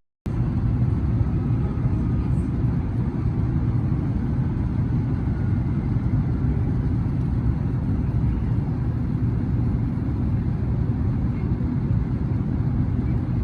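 Steady low road rumble and engine noise heard from inside a moving car's cabin.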